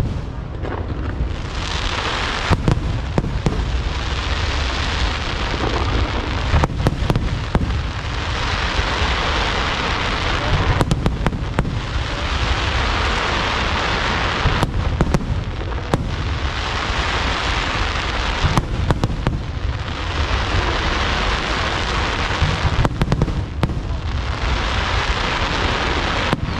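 Aerial fireworks bursting: clusters of sharp bangs come about every four seconds over a continuous noisy hiss.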